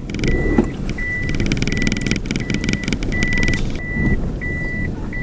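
A car's warning chime beeping steadily, a short high beep about one and a half times a second, over the low rumble of the car.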